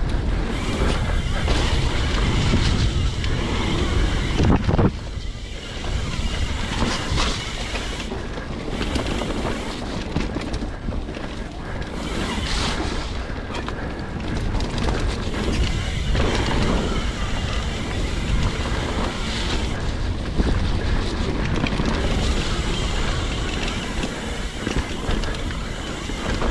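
Wind rushing over the microphone and mountain bike tyres rolling over a dirt singletrack at speed, with scattered knocks and rattles from the bike over bumps and roots.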